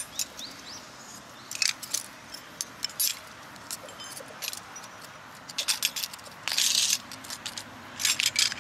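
Small metal household tools (scissors, a steel ruler, a spoon, a nail file) clinking and clattering as they are set down one by one on a wooden stump, in scattered short clinks with one longer half-second scrape about six and a half seconds in.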